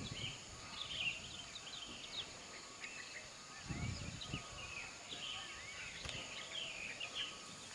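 Birds chirping and calling over a faint low background rumble, with a brief deeper swell of rumbling about four seconds in: the distant sound of a rockfall sliding down Merapi's lava dome.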